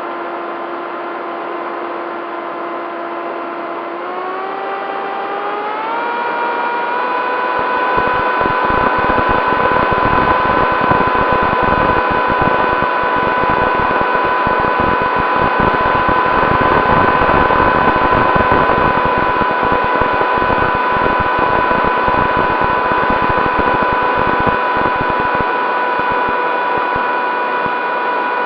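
Electric motor and propeller of a Bixler 3 RC plane whining steadily, heard from the onboard camera, with wind buffeting the microphone. The pitch rises about four to six seconds in as the throttle opens, holds, and drops back near the end.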